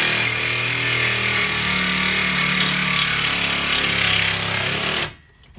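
Ryobi reciprocating saw cutting through the bottom corner of a metal window frame and its nail fin, running steadily and then stopping about five seconds in.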